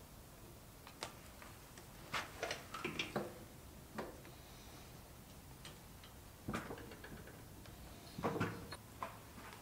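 Parts and tools being handled on a moped engine: scattered light clicks and knocks, bunched about two to three seconds in and again about eight seconds in.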